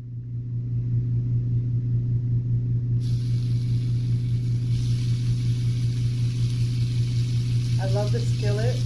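Bacon sizzling in a hot skillet, the sizzle starting about three seconds in as a raw strip goes into the pan, over a steady low hum.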